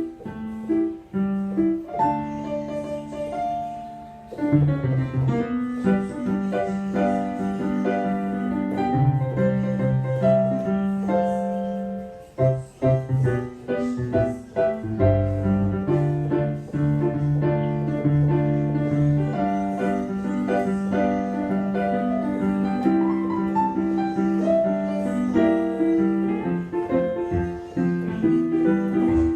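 Roland XPS-10 keyboard playing a forró tune: a melody line over chords and a moving bass line, with two brief breaks about 4 and 12 seconds in.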